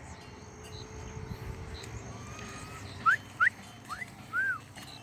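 An animal's short whistle-like calls, starting about three seconds in: three quick rising notes, then one that rises and falls.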